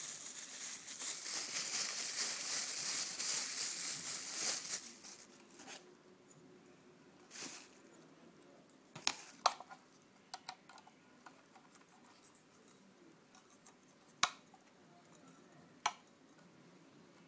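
Plastic wrapping and foam packing rustling and crinkling for about five seconds as a boxed IP camera is unpacked, followed by a few sharp, separate clicks and taps as the plastic camera is handled.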